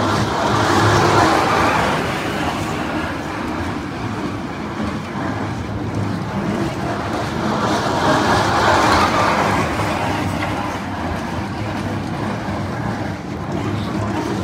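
Small kiddie train ride running along its track, a steady rolling noise of wheels on rails that swells twice as the cars pass close, about a second in and again around eight to nine seconds.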